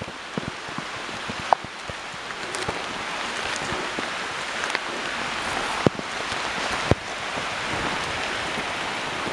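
Rain falling on forest foliage, building steadily louder into a downpour, with sharp taps of drops striking close by.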